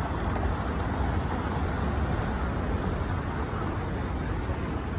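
City street traffic: a steady rumble of cars driving past.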